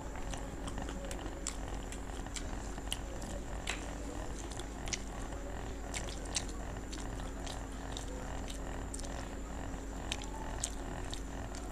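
People chewing fried vegetable pakoras, with scattered small crunches and mouth clicks at irregular moments over a steady background hum.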